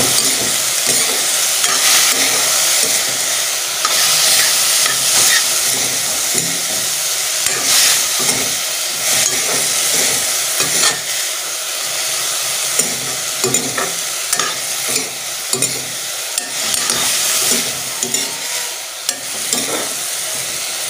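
Fiddlehead ferns (niuro) sizzling in hot oil in a metal pan, with a metal spatula repeatedly scraping and stirring them.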